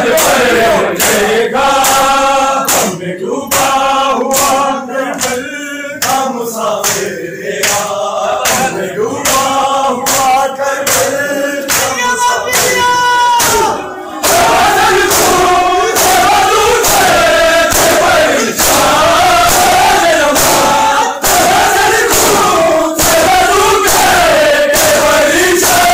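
A Punjabi noha sung by men's voices, with the mourners chanting along, over the rhythmic sharp slaps of hands striking bare chests in matam, roughly one to two slaps a second. The singing thins with short pauses in the first half, then the full crowd comes in louder about halfway through.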